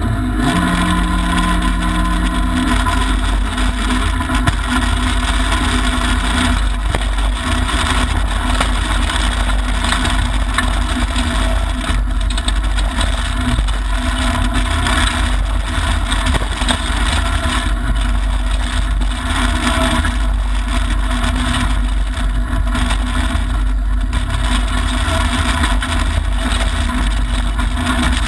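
Mitsubishi Lancer Evolution IX rally car's turbocharged 2.0-litre four-cylinder engine running hard at stage speed, heard from inside the stripped cabin together with the din of tyres on loose gravel. It stays loud without a pause.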